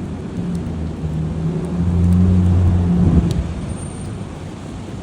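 A vehicle's engine running with a low hum over rumbling noise, swelling louder about two seconds in and easing off a second later.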